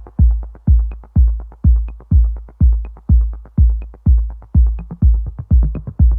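Electronic dance music: a deep kick drum about twice a second under quick ticking hi-hats, with the ticks speeding up near the end.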